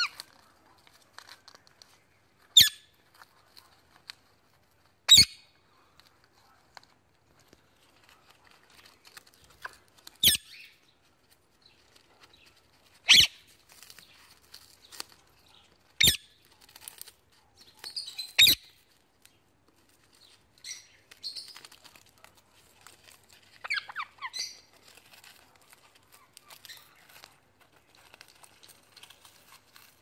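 Indian ringneck and Alexandrine parakeets tearing at cardboard on a wire cage: about six short, sharp snaps spaced a few seconds apart, then a few brief bird calls near the end.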